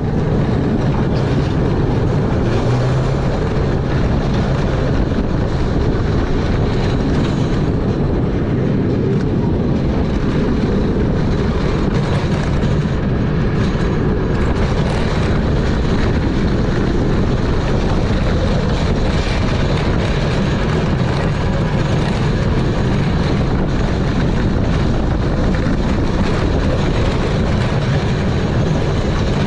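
Lightning Rod wooden roller coaster train running along its track: a steady, loud rumble.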